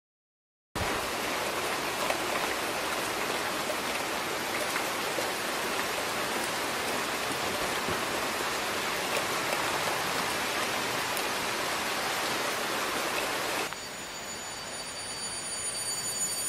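Steady rain falling, starting suddenly just under a second in. About three seconds before the end the rain cuts out and gives way to a quieter ringing drone of several high pitches that swells in loudness.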